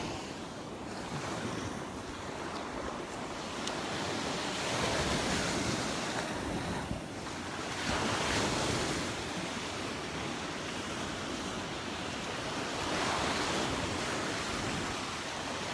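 Gulf of Mexico surf breaking on the beach in a steady rush that swells every few seconds, with wind buffeting the microphone.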